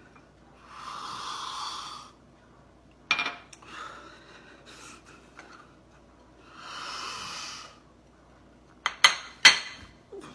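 Two long, deep breaths, each about a second and a half, as a man smells a piece of fried fish held up to his face. Near the end come a few sharp clacks, the loudest sounds.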